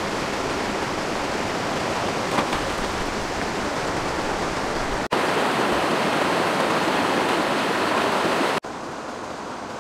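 Rushing water of a rocky stream, a steady noise that abruptly gets louder about five seconds in and drops quieter again near the end.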